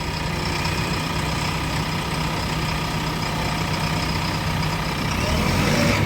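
Diesel engine of a backhoe loader or tractor running steadily at idle, with an even low hum that does not change.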